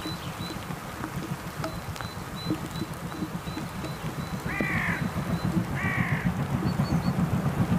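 Steam locomotive 52 8079, a DR class 52.80 Reko engine, working up the line: a fast, even exhaust chuffing that grows louder as it approaches. A crow caws twice, about four and a half and six seconds in.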